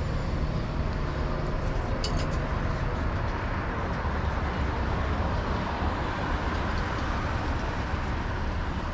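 Street traffic: a steady low rumble of motor vehicles running close by, swelling in the middle as one passes, with a few sharp clicks about two seconds in.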